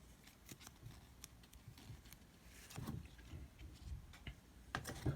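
Faint clicks and soft rustles of trading cards being handled and slid through the hands, with a few slightly louder card sounds around the middle and near the end.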